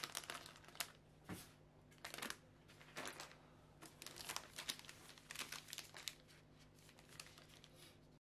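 Snack packaging crinkling as it is handled, in irregular bursts of crackle over a faint steady hum.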